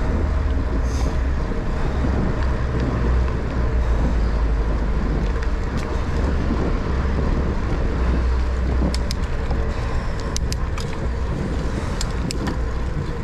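Bicycle riding along a paved trail: a steady low rumble of wind on the microphone and tyre noise on asphalt. A few sharp clicks come in the last few seconds.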